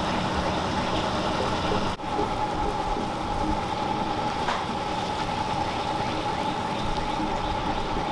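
Barbecue sauce reducing at a rolling boil in a stainless steel skillet over a gas burner: steady bubbling over the constant hiss and hum of the burner, with a brief break about two seconds in.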